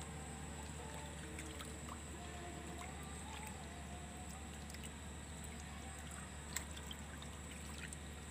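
Faint outdoor background: a steady low hum and hiss with water trickling faintly and a few small clicks.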